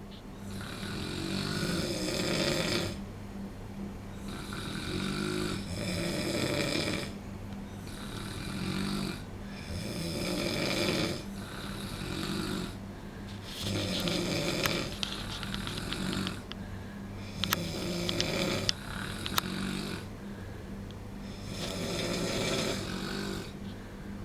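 Two men snoring in deep sleep. A long rasping snore comes about every four seconds, with a few sharp clicks in the middle stretch.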